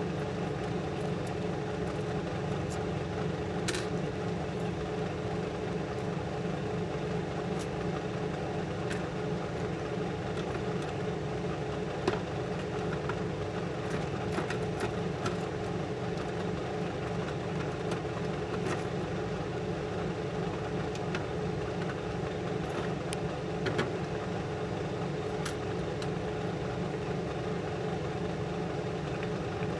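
Steady hum of a clean-room air blower running, with a few small clicks and taps from tools on the drive, one sharper click about twelve seconds in.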